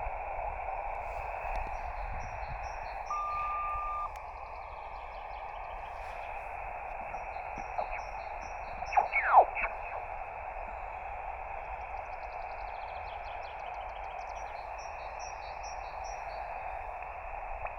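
Shortwave transceiver hissing from its speaker on an empty single-sideband channel. A brief steady tone comes about three seconds in, and a loud whistle falls in pitch about nine seconds in. Birds chirp repeatedly in the background.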